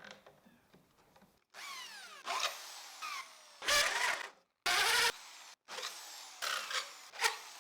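Electric hand drill with a 64 mm hole saw cutting into wood, heard as several short bursts with sudden breaks between them; in places the motor's pitch falls as it slows.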